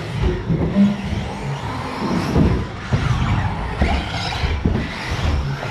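Radio-controlled model cars racing around a track, their motors and tyres making a busy, uneven noise with repeated knocks.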